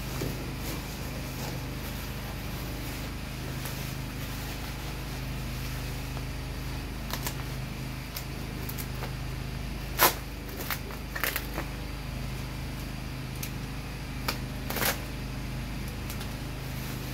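Rustling and sharp clicks of a gun part being handled and unwrapped from black mesh packaging, the loudest click about ten seconds in, a few more just after and two near the end. Under it runs the steady low hum of a generator.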